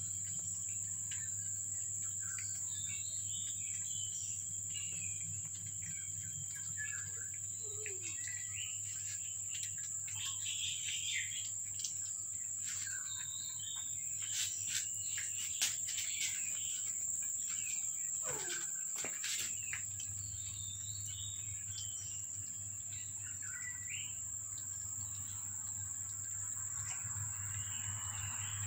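Insects droning steadily at one high pitch, with short bird chirps scattered through and a low steady hum underneath.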